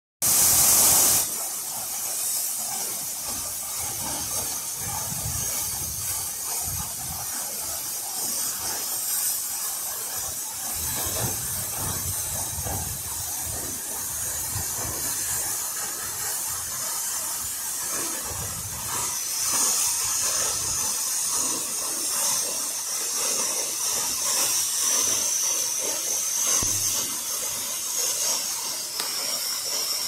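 Waterfall plunging into a rock pool: a steady rushing hiss of falling water, louder and brighter for the first second. A thin high whine joins about two-thirds through.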